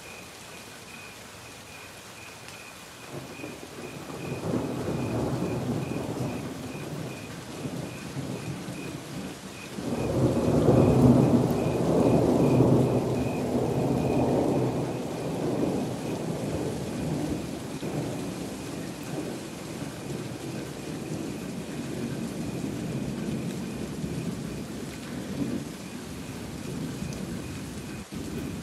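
Thunder from a nearby lightning strike: a low rumble builds about three seconds in, then a much louder peal breaks about ten seconds in and rolls on, slowly fading.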